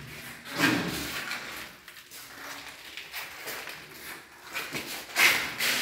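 Footsteps and shuffling on a tiled floor in an empty house, with two louder noises, about half a second in and near the end.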